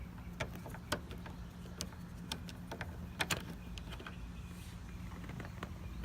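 Small scattered clicks and taps of a screwdriver backing a screw out of a car's interior door trim, over a steady low hum.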